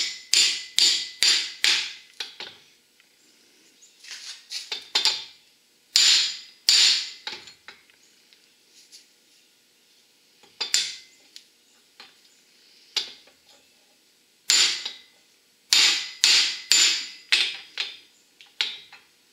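Hammer striking a new U-joint bearing cap and the steel axle yoke clamped in a bench vise, tapping the cap down so its C-clip seats in the groove. Sharp metallic blows come in quick runs with pauses between, the longest run near the end.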